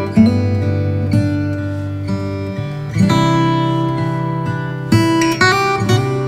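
Background music: an acoustic guitar strumming chords, a new chord struck every second or two.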